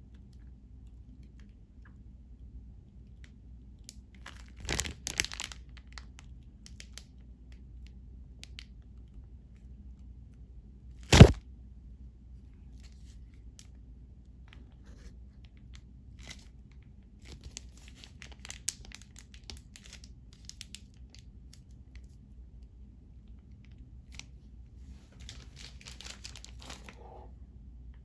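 Scattered crinkling, crackling handling sounds in short clusters, with one sharp knock about eleven seconds in.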